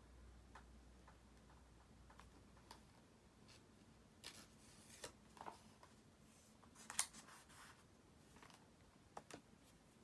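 Faint desk sounds of studying: a pen writing on a workbook page and light paper handling, with scattered soft clicks and taps, the sharpest about seven seconds in.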